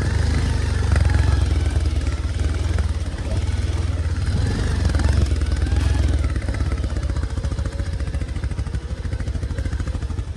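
Bajaj Pulsar 220F motorcycle's single-cylinder engine running under way, with a steady low exhaust note. About two-thirds of the way through the revs ease off and the separate firing pulses become easier to hear.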